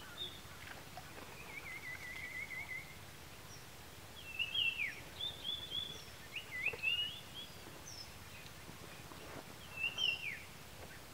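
Small birds calling: a quick trill about two seconds in, then several phrases of sharp chirps with falling notes, the loudest near the middle and again near the end, over a steady outdoor hiss.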